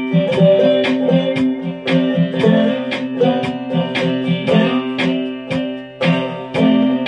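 Guitar played with a slide: a steady picked rhythm of about two strokes a second over held low notes.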